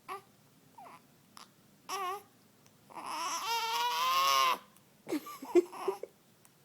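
Newborn baby fussing: a few short squeaks, then one long wavering whiny cry of about a second and a half, followed by a run of short grunts, the straining of a newborn trying to pass a bowel movement.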